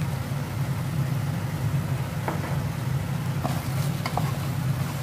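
Steady low machine hum, with a few light knocks of a spatula against a nonstick pan in the second half.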